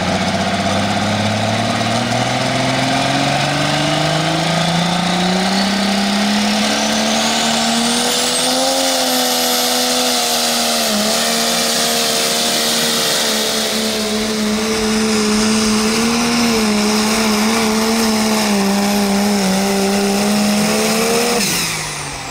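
Light limited super stock pulling tractor's turbocharged diesel engine at full throttle down the track. The engine note climbs over the first several seconds while a turbo whine rises to a very high pitch, then holds at high revs with small dips. About 21 seconds in the throttle is cut and the sound drops away quickly, the end of the pull.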